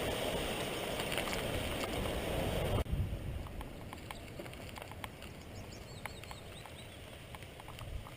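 A loud, steady rushing noise that cuts off abruptly about three seconds in. Then quieter outdoor ambience with a few faint bird chirps.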